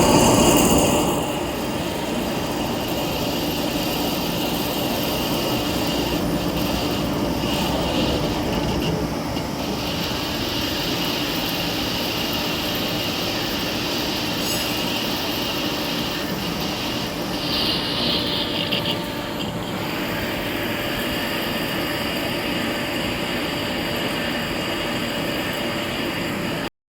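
Vertical lathe running with a steady, dense machining noise, and a brief higher-pitched screech about eighteen seconds in.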